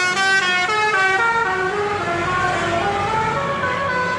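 Bus "telolet" musical horn playing a tune: a quick run of stepped horn notes, about four a second, that slows into longer held notes in the second half.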